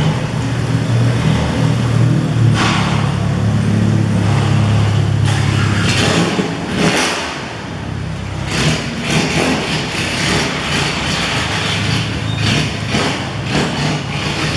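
Car engine running hard at steady revs for about six seconds, easing off and dipping about seven seconds in, then coming back with several short revving surges.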